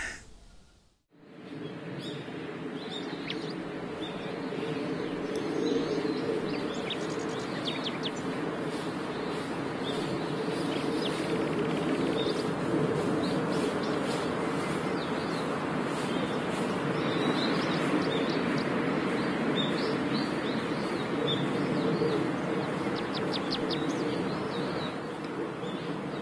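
Small birds chirping in short, scattered calls over a steady low background noise, starting about a second in.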